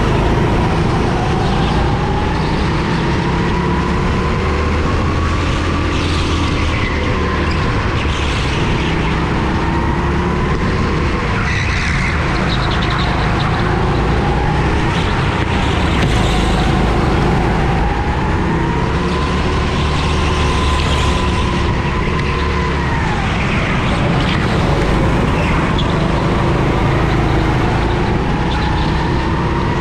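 Racing kart engine heard on board, its revs climbing and falling again and again, every several seconds, as the kart laps the track. A heavy low rumble of engine and chassis vibration runs under it.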